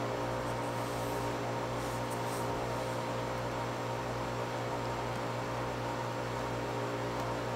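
Steady electrical hum and hiss, with faint soft swishes of a silicone spatula stirring thick liquid soap in a glass beaker.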